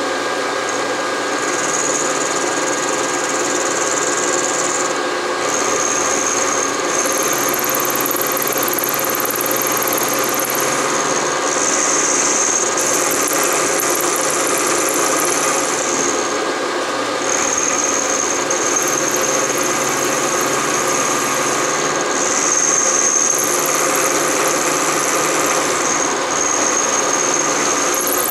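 Bridgeport milling machine running, its cutter taking the final-depth cut in the dovetail slot. A steady machining drone with a high-pitched squeal from the cut that drops out briefly several times.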